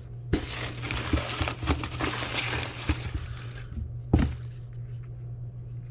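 A hand rummaging through crinkle-cut shredded paper filler in a cardboard box: a dense crinkling rustle for about three seconds, then one sharp knock about four seconds in. A steady low hum sits underneath.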